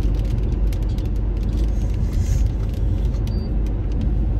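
Car in motion heard from inside the cabin: a steady low rumble of engine and road noise, with faint irregular ticks over it.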